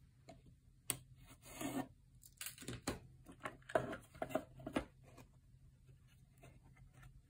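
Small pine-wood box being pried open along its lid seam with a thin metal blade and handled: a sharp click about a second in, a short wooden scrape, then a run of clicks, knocks and scrapes before it goes quiet.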